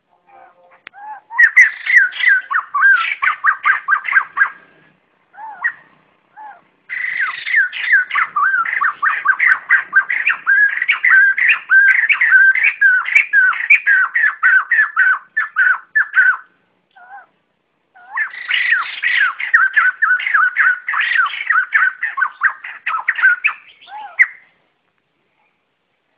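White-crested laughingthrush giving its loud flock-gathering call: three long bouts of rapid chattering notes, about three a second, each note sliding downward. The bouts are split by short pauses with a few single notes in them, and the calling stops about two seconds before the end.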